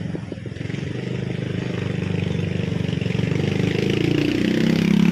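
Motorcycle engine running on the street, getting louder toward the end as it draws near.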